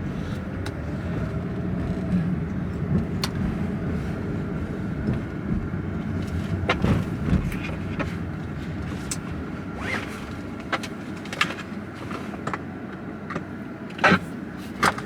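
Clicks, knocks and rustling of people settling into a car, over a low steady rumble, with two louder sharp knocks near the end.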